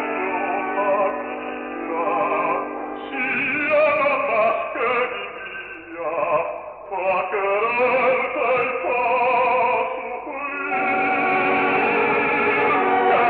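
Operatic orchestral music in an old recording that sounds narrow, with a wavering vibrato in the melody lines. It thins out for a moment about six seconds in, then swells into a fuller, sustained passage near the end.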